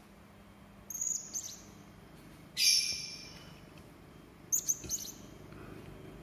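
Hanging parrot (serindit) giving sharp, harsh, high-pitched calls: a pair of short calls about a second in, one loud rasping call near the middle, and a quick run of three sharp notes later on.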